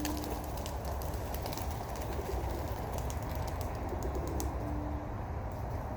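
Domestic pigeons cooing softly, two short low coos, over a steady low rumble with scattered light clicks.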